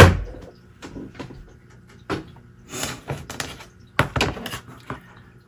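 Work-table handling noises: a loud thump at the start, then light rustling of paper and small clicks as a roll of tape is handled, with a sharp knock about four seconds in.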